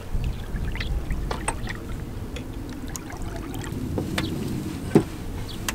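Water splashing and sloshing as a hooked crucian carp is played up to the surface. Light clicks are scattered through it, with one sharper knock about five seconds in.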